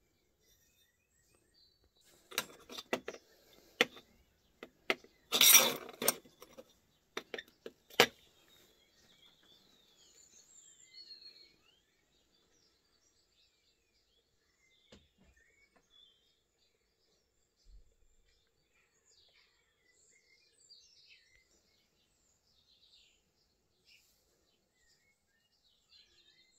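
Hard objects clinking and knocking on a concrete floor, a string of sharp clicks with one louder clatter about five seconds in. Faint bird chirps follow.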